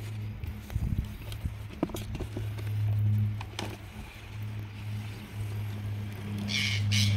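A steady low machine hum that swells and fades every second or two, with a few light clicks of a plastic jar being tipped on the ground about a second in.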